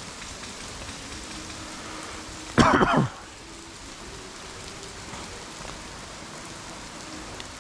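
Steady rain patter, broken about two and a half seconds in by one short, loud vocal sound lasting half a second.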